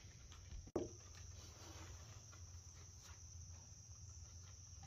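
Faint, steady high chirring of crickets at night, with a single sharp click about a second in.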